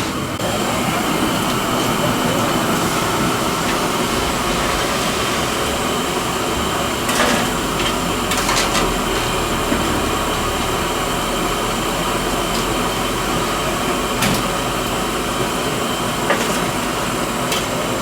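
Corn bhajiyas deep-frying in hot oil: a steady sizzle, with a few sharp clicks scattered through it.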